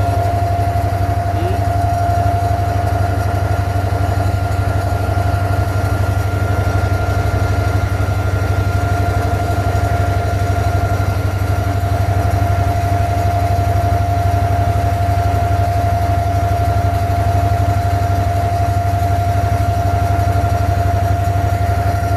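An abra water taxi's engine running steadily while the boat is under way, heard from aboard: a deep, unbroken drone with a steady higher hum above it.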